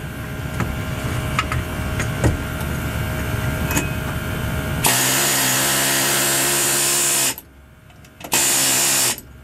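Pneumatic air hammer with a rivet set peening a rivet that holds a new lining to a drum brake shoe, as a rapid steady hammering buzz. It fires in two bursts: one of about two and a half seconds starting about five seconds in, then a short one near the end. Before the first burst there is low rumbling and a few knocks.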